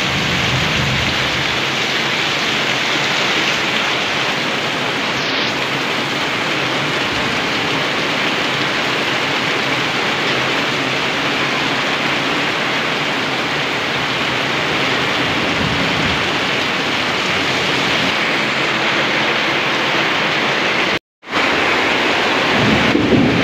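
Steady, even rushing noise like heavy rain, with a brief drop to silence about 21 seconds in.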